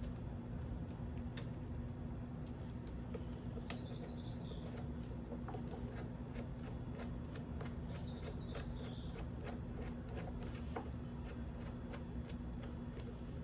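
Scattered light clicks and taps of small brake parts and tools being handled while a motorcycle front brake caliper is fitted, over a steady low hum. Two brief high warbling chirps come about 4 and 8 seconds in.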